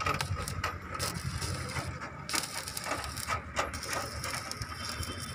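Irregular metallic clicking and rattling from work on the anchor bolts of a steel column base plate, with a hissy crackle joining in about two seconds in.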